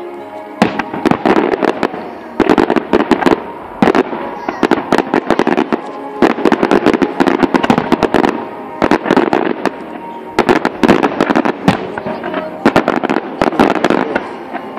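Fireworks display: loud, rapid crackling bangs from bursting shells and crackle effects, coming in dense volleys again and again.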